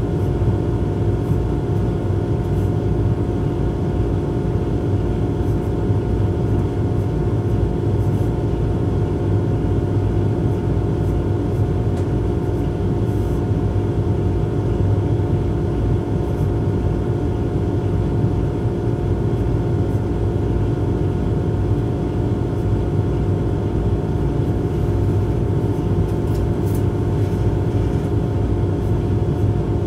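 Cab of a Siemens Eurosprinter class 120 electric locomotive at a standstill: a steady electrical hum with several high steady tones, over a low rumble from a container freight train rolling past on the adjacent track.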